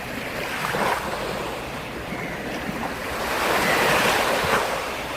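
Black Sea waves breaking and washing on the shore: a smaller surge of surf about a second in and a larger one building to a peak around four seconds.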